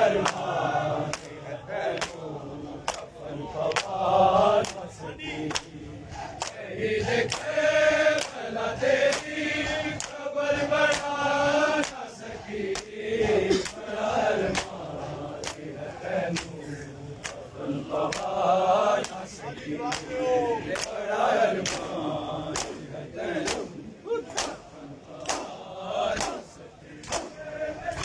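Crowd of men chanting a noha together, with sharp, even slaps of hands beating bare chests in unison (matam) a little over once a second.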